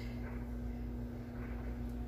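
Soft, faint sounds of a fork turning chicken wings in a sticky molasses and brown-sugar coating, over a steady low hum, with a light click near the end.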